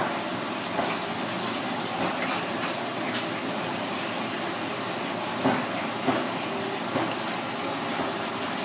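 Tap water running steadily onto a fish on a cutting board, while a metal fish scaler scrapes off its scales in short strokes that stand out over the water now and then.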